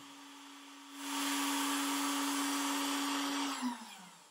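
Router spindle of an Onefinity CNC running with a steady whine that gets louder about a second in. Near the end it is switched off and spins down, its pitch falling away as the carving pass finishes.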